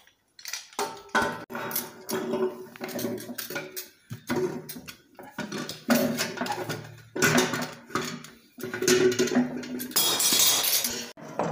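Metal clanking and ringing as a welded sheet-metal tank and the tools around it are handled and knocked: a run of irregular knocks, each leaving a short ring. A longer hissing scrape comes near the end.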